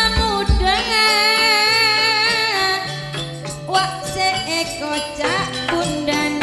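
Javanese gamelan music (a gending) with a female singer holding a long, wavering vocal line over the ensemble's sustained tones and melody notes.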